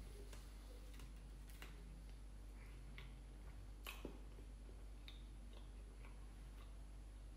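Faint chewing and mouth sounds from eating fried chicken: soft, irregular clicks and small crunches, the clearest about four seconds in, over a low steady hum.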